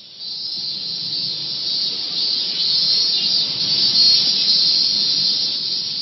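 Steady, high-pitched chorus of insects shrilling, a little louder around the middle.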